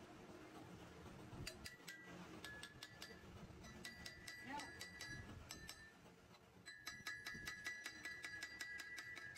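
Curled steel chips clinking against the inside of a cast wheel hub chucked on a lathe as they are scooped out by hand. The quick light clinks come in three runs, about a second and a half in, about four seconds in and about seven seconds in, with a faint metallic ringing under each run.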